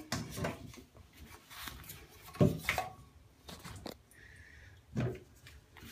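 Bath toys being handled and put into a mesh toy-organizer pocket: rustling with a few soft knocks, the loudest about two and a half seconds in and another about five seconds in.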